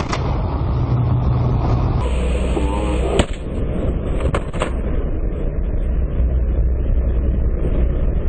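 Small propeller plane's engine droning steadily, heard inside the cockpit with a heavy rushing noise, broken by a few sharp clicks.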